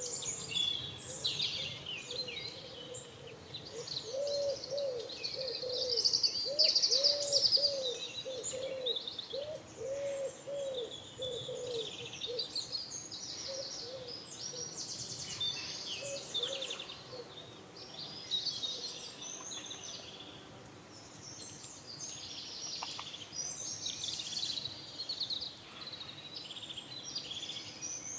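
Morning chorus of small songbirds chirping and trilling. Under it, a pigeon coos: a run of low, rounded notes about twice a second that fades out about halfway through.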